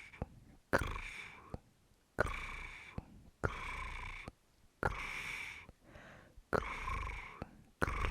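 Close-miked ASMR mouth sounds: six times, about once every second and a half, a sharp mouth click followed by a breathy, hissing exhale.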